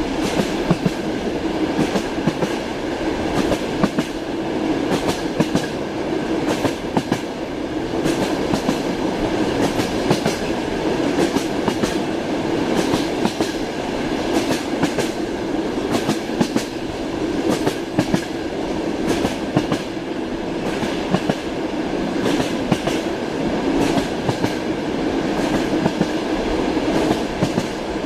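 Inside a moving train carriage: a steady rumble with the clickety-clack of the wheels knocking over the rail joints, coming in quick pairs and groups of clicks.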